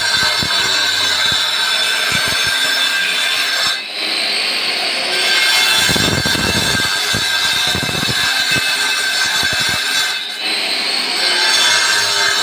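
Handheld electric disc cutter with a masonry disc cutting a groove into a brick wall: a steady high whine with grinding noise that eases off briefly twice, about four and ten seconds in, with gritty crackling in the middle.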